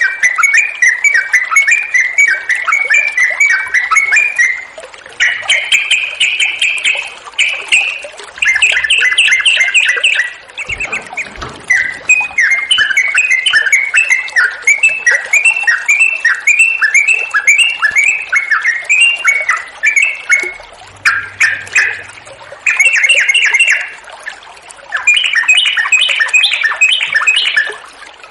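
Yellow-vented bulbul (cucak trucuk) singing in long runs of rapid, chattering notes, broken by a few short pauses, over a steady wash of flowing water.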